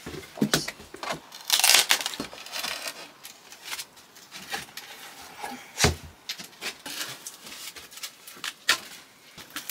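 Old wall covering being pulled and pried off a wall: irregular knocks and clatter, with a scraping tear about one and a half seconds in and a sharp knock near the middle. The covering resists and won't come off easily.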